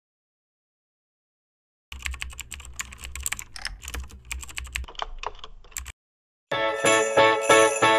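Computer-keyboard typing sound effect: a fast, irregular run of key clicks over a low hum for about four seconds, stopping abruptly. About a second later, bright music with jingle bells starts.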